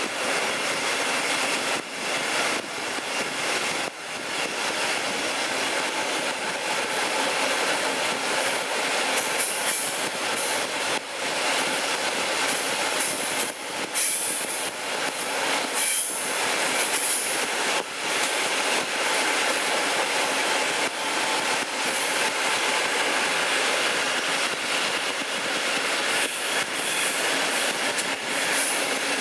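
Wheels of a moving passenger train squealing on a tight curve, a high-pitched screech that comes and goes, loudest around the middle, over the steady rush and rumble of the coaches running on the track, heard through an open carriage window.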